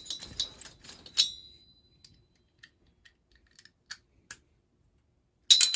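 Small steel nut and lock washer clicking against a socket and the engine's cylinder-head studs as they are pushed on by hand. A cluster of clicks comes with a short ringing clink about a second in, then a few faint ticks, then a sharp ringing metallic clink near the end.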